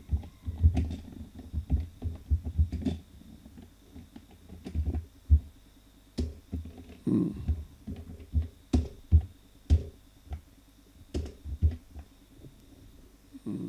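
Computer keyboard typing: irregular keystrokes in short runs with brief pauses, as a name is typed letter by letter.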